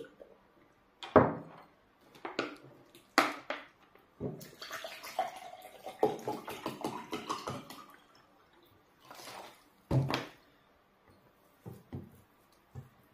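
Water poured from a plastic bottle into a glass, a steady splashing pour lasting about three and a half seconds. Before it come a few sharp knocks, the loudest about a second in. A knock about ten seconds in follows it.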